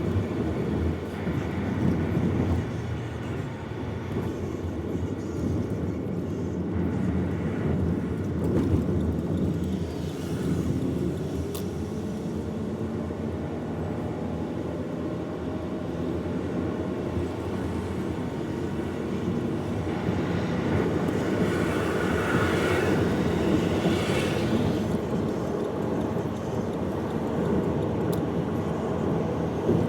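Steady rumble of a moving vehicle with its motor running. A faint pitch rises through the middle, as if it were speeding up. A louder hiss swells and fades about two-thirds of the way through.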